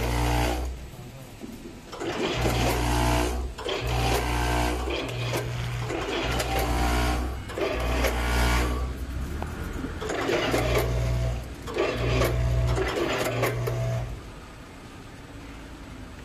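Multihead weigher on a popping boba packing machine, its hopper-gate motors humming and whining in repeated bursts about a second long with short pauses between, settling to a quieter hum near the end.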